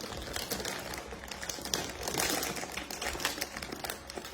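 Rapid, irregular clicking and crinkling of plastic snack packaging being handled close by.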